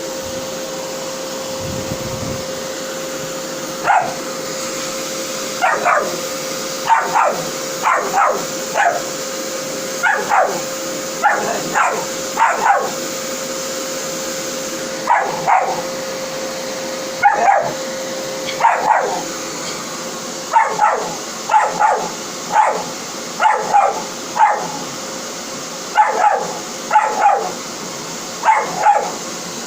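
A dog barks and yelps over and over at a running vacuum cleaner, in short calls that come faster toward the end. The vacuum's steady hum stops about two-thirds of the way through while the barking goes on.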